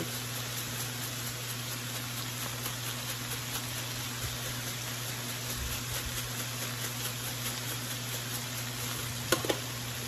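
Cabbage and bacon sizzling steadily in a cast-iron skillet, over a steady low hum. Two short sharp sounds come about nine seconds in.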